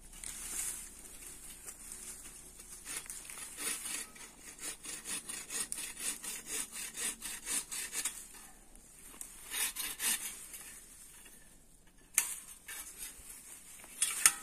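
Hand bow saw cutting through an oak branch, its blade rasping in quick back-and-forth strokes, pausing about 11 seconds in. Two sharp cracks follow near the end.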